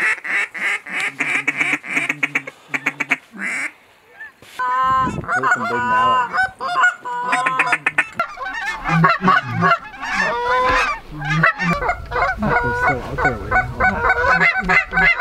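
Canada geese honking: a quick run of calls in the first few seconds, a brief lull, then a dense chorus of many overlapping honks and clucks as a flock comes in overhead. Wind rumbles on the microphone in the last few seconds.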